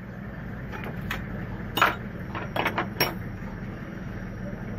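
Several short, sharp metallic clinks of an open-end spanner knocking against engine parts around the camshaft pulley, the loudest a little under two seconds in, over a steady low background rumble.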